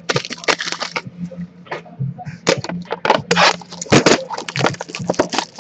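Trading cards and pack wrappers handled close to the microphone: a quick, irregular run of crinkles, flicks and rustles as packs are ripped and cards flipped through.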